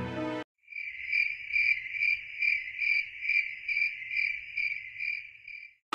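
Crickets chirping in a steady, pulsing high trill, about two to three pulses a second, after background music cuts off about half a second in.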